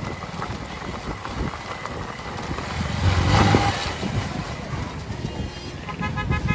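Racing bullock carts galloping past on a gravel track: a rapid clatter of hooves and wheels that swells as the carts pass close, about halfway through. Motorbike horns start honking near the end.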